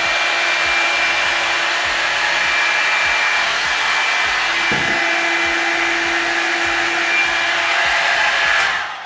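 Revlon One-Step hair dryer brush running steadily, a loud rush of air with a motor whine, until it stops near the end.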